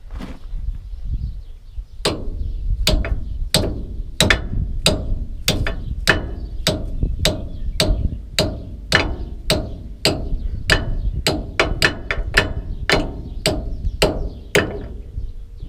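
Hammer blows on a grease joint rejuvenator fitted to a plugged grease fitting on a baler, driving grease into the seized joint. Sharp impacts at about two a second begin about two seconds in and stop near the end.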